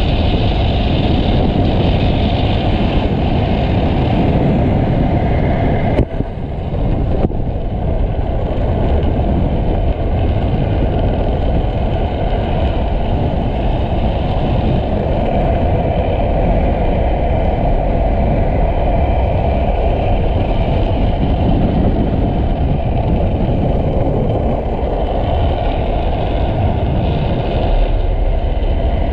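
Steady rush of wind over a helmet camera's microphone together with the rumble of a speed trike's hard wheels rolling fast on asphalt, with one sharp knock about six seconds in.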